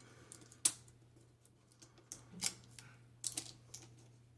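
A few sharp clicks and taps of small tablet parts being handled and pulled apart during a teardown, the loudest a little under a second in, over a faint steady low hum.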